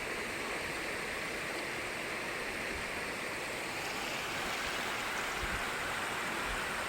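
Steady rushing of a waterfall's falling water, an even noise without change.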